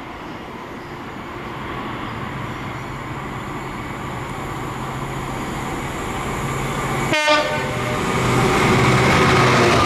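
Class 66 diesel locomotive approaching at the head of a freight train, its engine drone building steadily. From about seven seconds in it sounds its horn, loudest near the end as it draws close.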